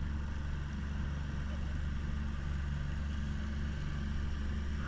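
Boat engine running steadily, an even low drone.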